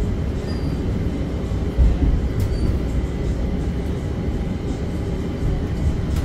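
Pittsburgh Red Line light rail car in motion, heard from inside the car: a steady low rumble of the running train, with a brief click about two seconds in.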